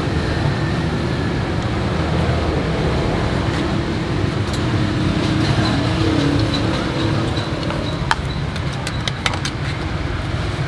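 Steady road-traffic rumble from a busy street, with an engine passing about halfway through. Several sharp clicks in the last few seconds.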